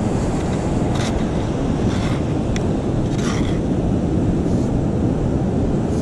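Steady roar of heavy surf and wind. A few short rattles of sand being sifted through a metal sand scoop sound over it.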